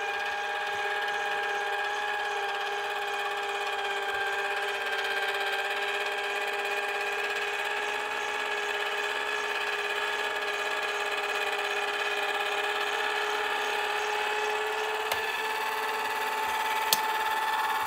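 Crafter's Companion Gemini Go electric die-cutting and embossing machine running, its motor drawing a plate sandwich through the rollers with a steady whine. A few small clicks come near the end.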